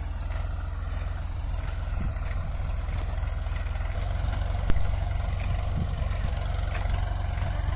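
Tractor engine running steadily under load as it pulls a soil-working implement that earths up soil along the tree rows, a continuous low rumble. A single sharp click about halfway through.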